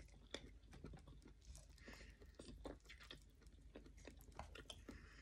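Faint chewing of a mouthful of rice and fried omelette, heard as a scatter of small clicks.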